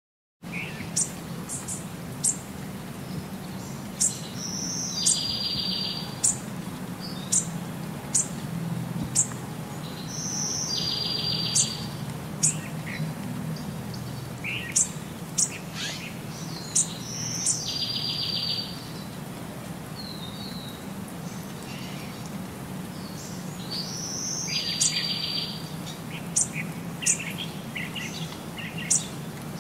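Small songbird chirping, with sharp high chirps and a song phrase repeated about every six seconds that ends in a short buzzy trill, over a low steady hum.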